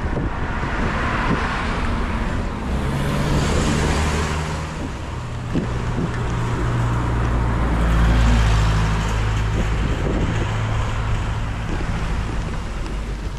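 Wind rushing over the microphone of a moving bicycle, with a passing car's engine swelling in, loudest about two-thirds of the way through, then fading.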